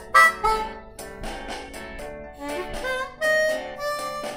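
Blues harmonica played solo with the instrument cupped in both hands: a phrase of short notes and longer held ones, some sliding in pitch.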